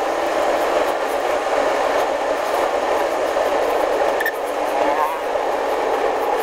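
Steady road and wind noise from a vehicle driving along a paved road, with a brief rising whine about five seconds in.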